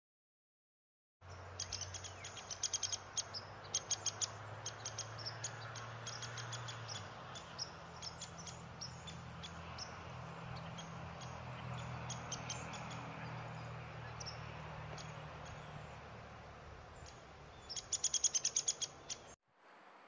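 Woodpecker ticking: quick runs of short, sharp, high clicks, bunched in the first few seconds and again in a fast burst near the end, with scattered single ticks between, over a low steady hum.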